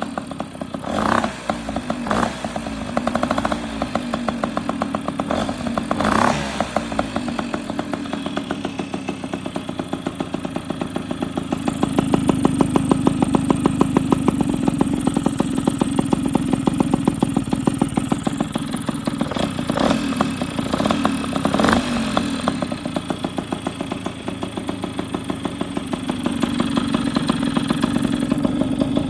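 Tomos A35 moped's single-cylinder two-stroke engine with a ported Airsal 65cc cylinder kit, running with a rapid even firing beat. It is blipped briefly several times and held at higher revs twice, about twelve seconds in and again near the end.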